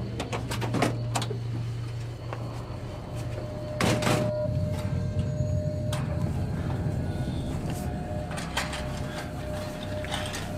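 Several sharp knocks and clatters over a low, steady drone, with the loudest clatter about four seconds in.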